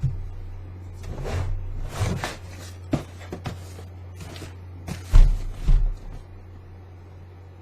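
Handling noise as sneakers are moved about and turned over: scattered soft knocks and rustles, then two heavy low thumps about five seconds in, over a steady low hum.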